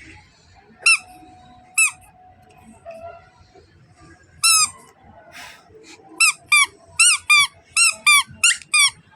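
Squeaky toy being squeezed: short, high squeaks, a few spaced apart, then a quick run of about eight near the end.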